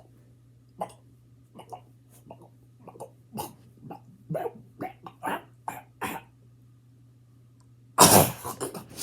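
A person imitating a cat retching up a hairball: a run of short hacking coughs that grow louder and come faster, a pause of about two seconds, then one loud burst near the end.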